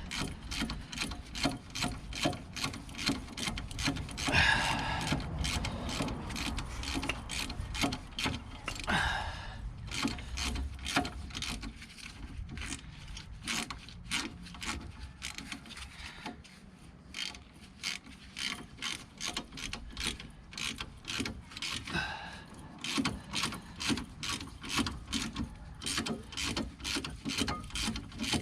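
Hand ratchet clicking in quick runs as it tightens the front brake caliper bolts on a 2012 Fiat 500, with a brief pause about two-thirds of the way through.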